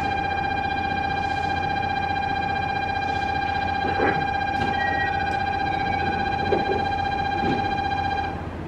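Station platform departure bell: a single steady electronic tone that holds and stops shortly before the end, signalling that the train's doors are about to close.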